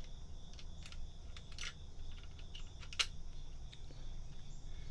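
Small clicks and taps of Glock 19X parts being handled and fitted into the polymer frame during reassembly, with one sharper click about three seconds in.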